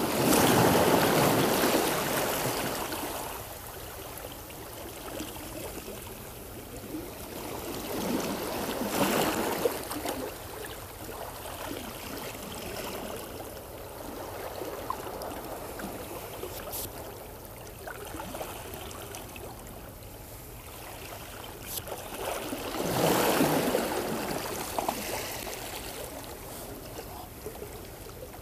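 Seawater washing and sloshing against the rocks of a stone seawall. It swells up three times, near the start, about a third of the way in and near the end, over a steady wash of water.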